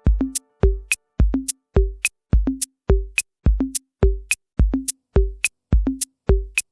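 Music: a bare electronic drum beat playing alone, with no other instruments. It has a low kick on an even pulse of about three beats a second, short pitched percussion hits, and sharp clicks.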